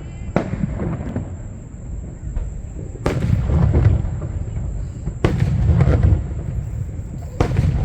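Aerial fireworks shells bursting: four sharp booms about two seconds apart, each followed by a low rumble lasting about a second.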